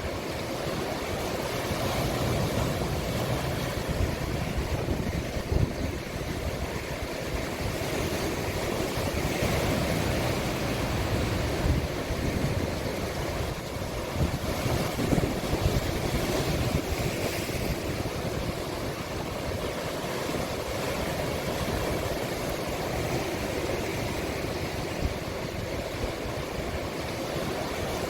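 Sea waves breaking on the shore in a continuous rushing wash that swells and eases every few seconds. Wind rumbles on the microphone.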